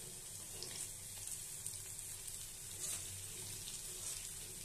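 Masoor dal fritters sizzling in hot oil in a steel wok as their second side fries, a steady hiss with a few light scrapes of a spatula.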